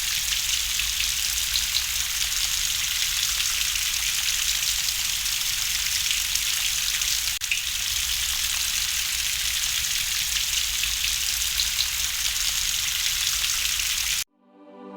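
Steady rain ambience, a dense even hiss of falling rain, that cuts off abruptly near the end. Soft sustained music, organ-like chords, then fades in.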